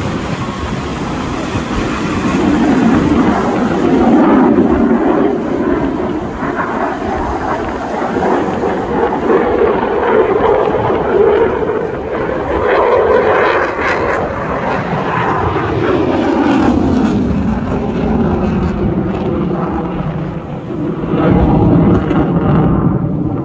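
Jet engine roar from a delta-wing fighter jet flying low display passes, swelling and fading several times. Around two thirds of the way through, the pitch slides down as the jet goes past.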